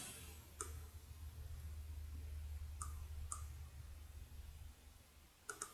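A few faint computer mouse clicks, spaced a second or two apart, over a low steady hum that fades out near the end.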